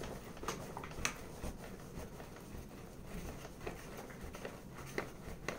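Faint handling sounds: soft rubbing with scattered light taps and clicks.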